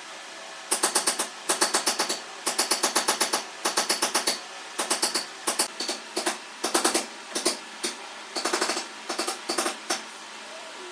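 Rapid mechanical hammering in short bursts, about ten strikes a second, typical of a reciprocating woodworking power tool being pulsed on and off.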